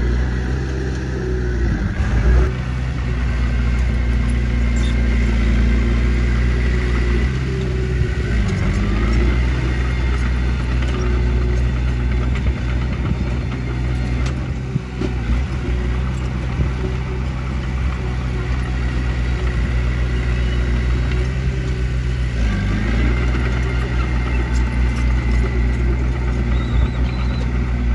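Small crawler bulldozer's diesel engine running steadily as it pushes soil, with its note dipping briefly about three times under load.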